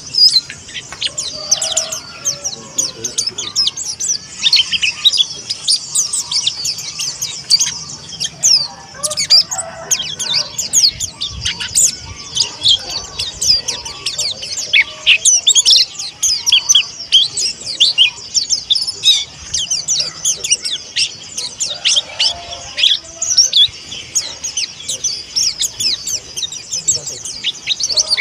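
Mountain white-eye (pleci monty) singing: a dense, unbroken run of rapid, high-pitched chirping notes.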